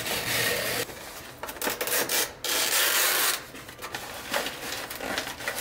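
Crinkling and tearing of the plastic shrink-wrap film being peeled off an instant noodle cup, coming in several rustling stretches, the longest and loudest a little under a second long about two and a half seconds in.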